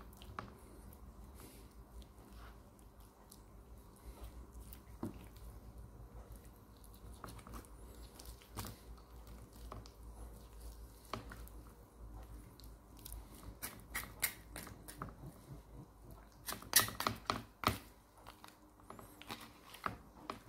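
Soft wet cutting and tearing as a boning knife works the bone out of a raw chicken thigh, with scattered light taps of the knife on a plastic cutting board. A quick run of louder taps comes about three-quarters of the way through.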